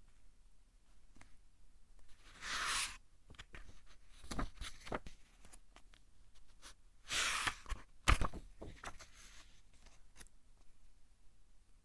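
Pages of a thick-paper book being turned by hand: two swishing page turns about four and a half seconds apart, with softer paper rustles between them and a sharp paper snap just after the second turn.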